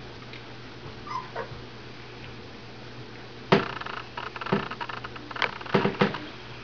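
A young standard poodle puppy gives a short squeak that falls in pitch, about a second in. From about halfway there is a run of sharp clicks and rustles, the first the loudest.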